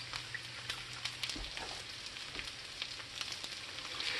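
Steak, chorizo and rice sizzling in a hot cast iron skillet: a steady, fairly faint sizzle with scattered small pops and crackles. Right at the end it swells as beef broth starts pouring into the hot pan.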